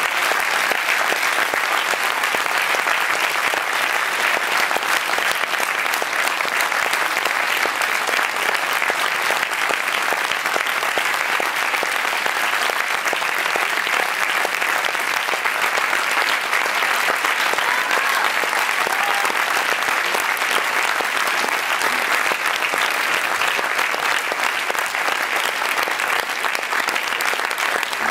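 Theatre audience applauding, dense and steady without a break.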